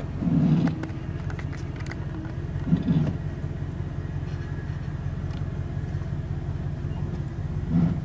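A Chevrolet Silverado 2500's 8.1 L Vortec V8 running steadily at low rpm while pulling a boat, heard from inside the cab, with two brief louder low sounds about half a second in and near three seconds. The engine has a misfire at low rpm under load, which the owner blames on the coils, spark plugs and wires.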